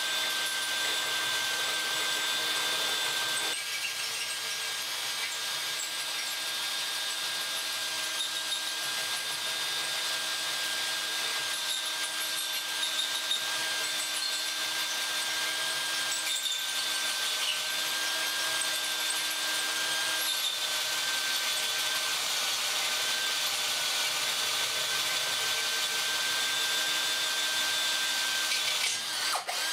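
Drill on low speed driving a carbide-tipped hole saw through 2 mm-wall 316 stainless steel: a steady cutting sound with a high whine, which stops suddenly as the saw breaks through at the very end.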